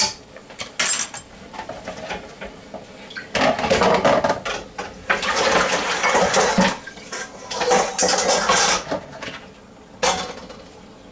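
Stainless steel stockpot and metal utensils clattering: a few sharp clinks, and longer stretches of rattling in the middle.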